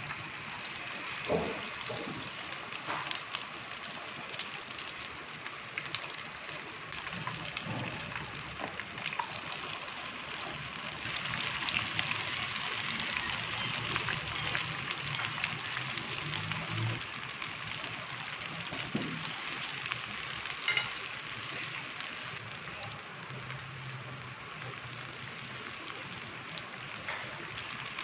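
Battered chicken pakora pieces deep-frying in oil in a pan: a steady sizzle that grows a little louder through the middle as the pan fills, with a few light clicks.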